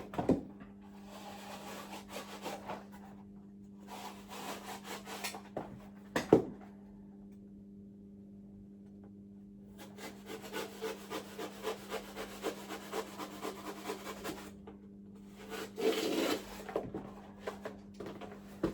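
Fire batt being cut by hand with a blade in quick, rasping back-and-forth strokes, in two spells, with a single sharp knock about six seconds in.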